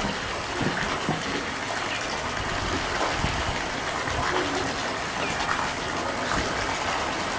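Steady rush of pool water, with an adult fur seal calling several times open-mouthed at a younger seal on its rock, complaining at the intruder.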